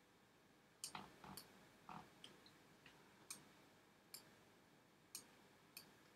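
Faint, irregular clicks of a computer mouse, about seven in a few seconds, as a crop box is clicked and dragged on screen.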